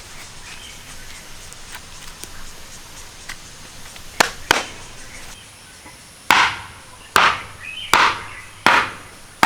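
Firewood being split with chopping strokes: two quick knocks about four seconds in, then a run of five sharp, evenly spaced strikes a little under a second apart.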